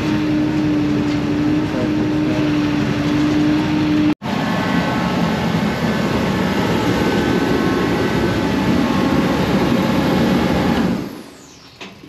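A truck engine running steadily with a hum in the first few seconds. It cuts out for an instant about four seconds in, comes back with a few steady higher tones in it, and drops away about a second before the end.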